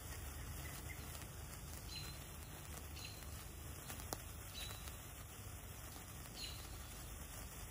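Sunwing Happy Hour sparkler burning with a faint fizz and crackle, a few soft ticks and one sharp click about four seconds in.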